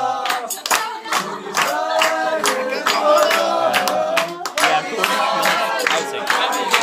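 A group of people singing a song together while clapping along in time.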